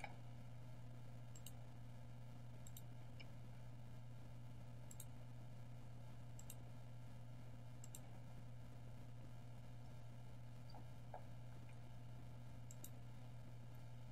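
Faint computer mouse clicks, about six, spaced irregularly over a low steady hum.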